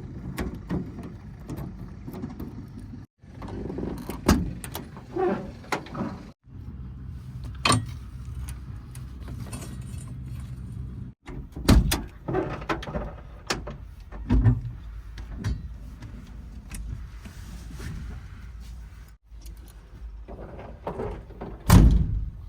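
Heavy diesel machinery running with a steady low hum, overlaid by repeated loud metallic clanks and thuds, the kind of knocking made by a backhoe loader working and loading a trolley. The sound breaks off abruptly several times.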